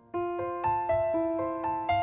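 Background music: a soft piano playing a run of single notes, about four a second, starting a moment in as an earlier held chord dies away.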